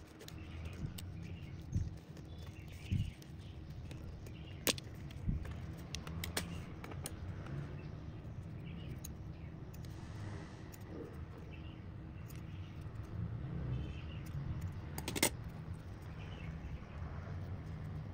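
Sharp scattered clicks and snips from cutting a strip of soft foam rubber with a snap-off utility knife and then scissors, with handling of the foam between them, over a low steady hum. The loudest click comes about fifteen seconds in.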